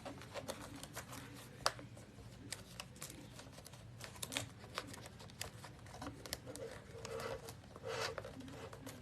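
Quiet room with scattered small clicks and light rustles, the handling of a label around a desktop label printer.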